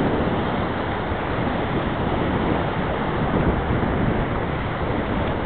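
Steady rush of whitewater river rapids around an inflatable raft, mixed with wind noise on the microphone.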